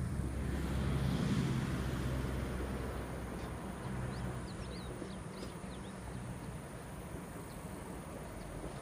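JNR Class DE10 diesel-hydraulic locomotive passing at a distance, its diesel engine a steady low drone that swells over the first couple of seconds and then slowly fades. A few brief bird chirps come in around the middle.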